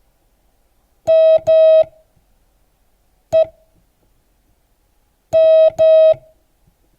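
A Morse code practice tone sends slowly, with wide gaps between letters: dah-dah, a single dit, then dah-dah again, spelling the letters M, E, M. It is one steady, buzzy mid-pitched note that switches cleanly on and off.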